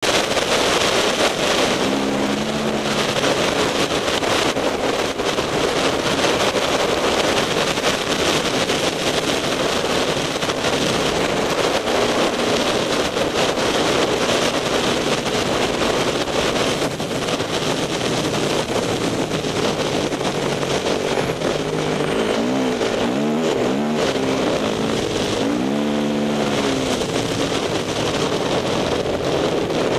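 Dirt bike engine running under way on a gravel track, buried in a constant rush of wind and tyre noise. The engine's pitch rises and falls several times near the end as the throttle is worked.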